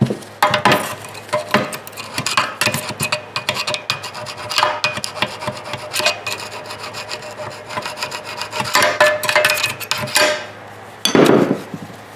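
A screwdriver scraping and prying inside the cut-open steel muffler of a Honda EU2000i generator, with metal grating on metal in a dense run of scratches and clicks. The muffler's inside is caked with black carbon. After a short pause near the end comes one louder scrape.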